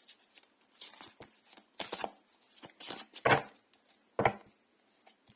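Tarot cards being shuffled and handled: a series of irregular flicks and slaps of card stock, the loudest two about three and four seconds in.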